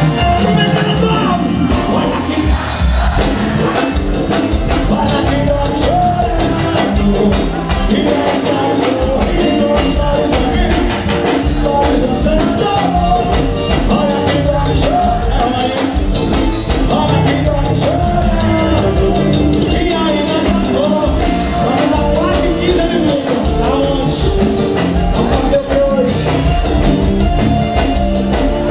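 Loud live forró band music over a concert PA, with a steady beat, melody lines and singing.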